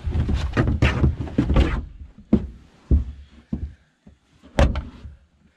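Thumps and scraping as a deer carcass is hauled onto a vehicle's bed, followed by a few separate knocks and a sharp bang about four and a half seconds in.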